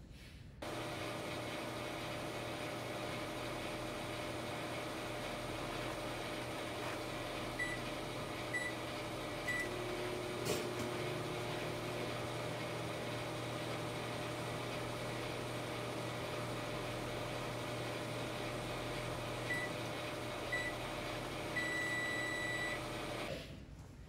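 Microwave oven running as a plasma deposition reactor: a steady low electrical hum. Three short beeps come about eight to ten seconds in, with a sharp click just after. More beeps come near the end, finishing in a longer beep.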